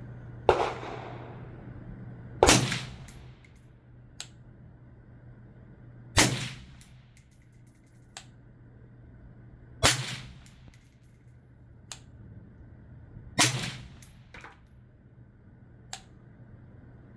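Five suppressed 5.56 AR-15 rifle shots fired slowly, two to four seconds apart. Each is a sharp crack with a short ringing tail, followed by fainter metallic clicks.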